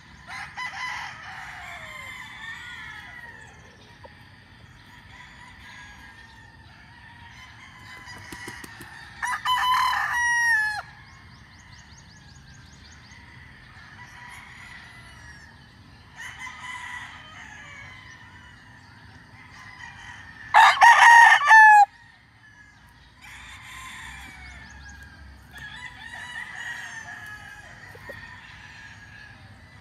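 Gamefowl roosters crowing over and over: two loud crows about ten and twenty-one seconds in, with several fainter crows between them.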